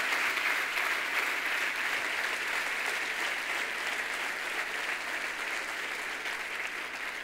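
A large audience applauding steadily, the clapping gradually dying down toward the end.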